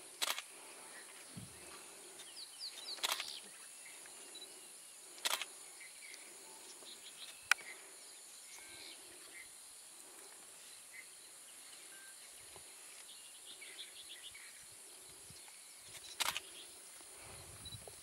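Bush ambience: a steady high insect hiss with a few faint bird chirps, broken by a handful of sharp clicks, about five spread through the stretch.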